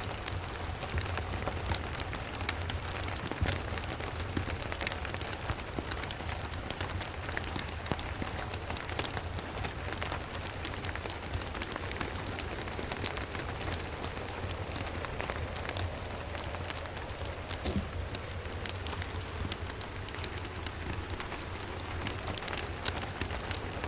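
Steady rain with many small sharp crackles and ticks from a fireplace and raindrops, over a constant low rumble.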